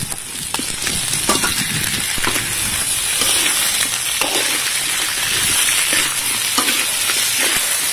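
Whole prawns and sliced onions sizzling in hot oil in a large pan, with a steady hiss. They are being stirred and turned, which adds short scraping strokes every second or so.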